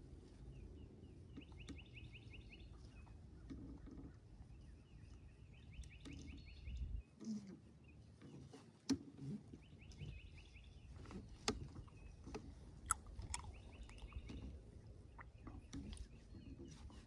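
Wind rumbling on the microphone, with a bird's short rapid run of high notes repeating every few seconds and a few sharp clicks. The wind drops out for a moment about seven seconds in.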